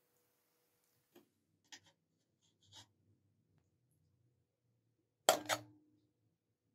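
A metal spatula and ladle clinking against an aluminium pot and serving bowl as pieces of fish are lifted out of the stew: a few light taps, then one sharp clink about five seconds in that rings briefly.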